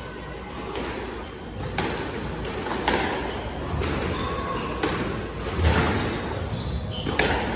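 Squash rally: the ball cracking off the rackets and the court walls about once a second, with short squeaks of court shoes on the wooden floor between the hits.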